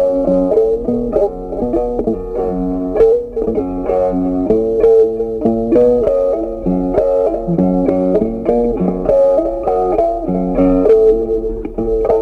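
Background music: a plucked guitar tune with bass, one note after another at an even pace.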